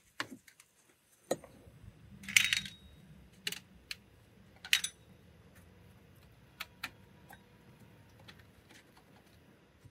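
Flat metal tucking tools clicking and scraping against a car door panel's plastic trim as fabric is pushed in under its edge. There are a dozen or so scattered light clicks and one brief louder scrape about two and a half seconds in.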